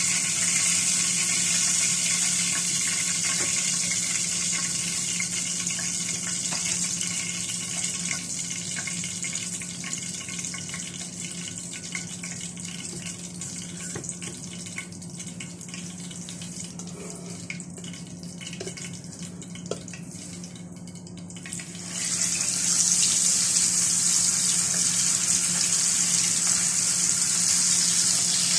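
Hot oil sizzling in a frying pan. The sizzle slowly dies down to a quieter bubbling once the fried fish is lifted out, then turns suddenly loud again about 22 seconds in as a whole zubaidi (silver pomfret) is laid into the oil to fry.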